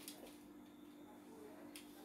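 Near silence: room tone with a faint steady hum and a single faint click near the end.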